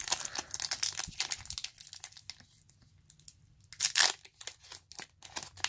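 Foil wrapper of a Pokémon TCG booster pack crinkling and tearing as it is opened by hand, a dense crackle that eases off midway, with a louder burst of crinkling about four seconds in.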